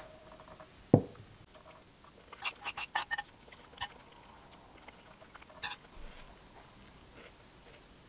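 A soft thump about a second in, then a metal spoon clinking and scraping against a ceramic plate in a quick run of clicks, with a couple more single taps later.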